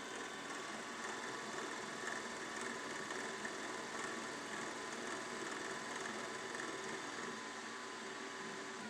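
Small milling machine taking a light cleanup pass with an insert cutter on a metal part: a steady machining sound with a few steady tones running through it.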